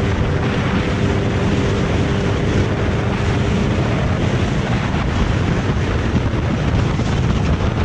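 Steady wind rushing over the microphone of a camera on a motorcycle riding at highway speed, with the motorcycle's engine running under it. A faint engine hum shows through in the first half and fades about halfway.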